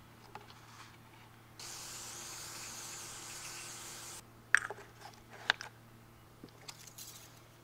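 Aerosol spray can with a straw nozzle hissing steadily for about two and a half seconds as it sprays a small part, followed by two sharp clicks about a second apart.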